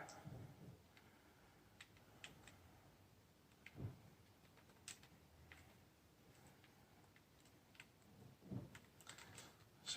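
Near silence with faint scattered clicks and taps of plastic parts being handled on a vacuum hose handle during disassembly, and a slightly louder knock about four seconds in.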